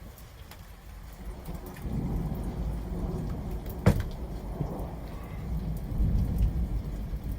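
Thunder over rain: a low rumble builds about two seconds in, with one sharp crack near the middle, and keeps rolling to the end.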